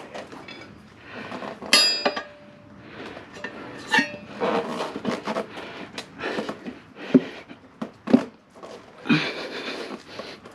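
Metal tire levers clinking and scraping against a motorcycle wheel rim as the tire bead is levered on, with a sharp metallic clank about two seconds in that rings briefly and further scattered knocks.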